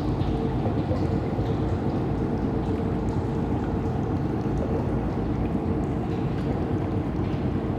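Abandoned-factory ambience: a deep, steady rumble with a constant hum over it, and scattered faint ticks and creaks.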